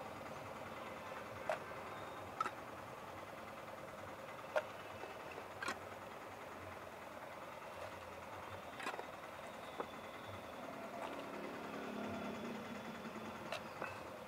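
Steady street traffic noise, with scattered sharp clicks and taps, about eight in all, from ingredients and utensils knocking against a tin mug and glass jars.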